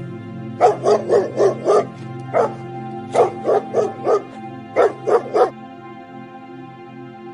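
A dog barking in quick runs of several barks, which stop a little past halfway, over steady background music.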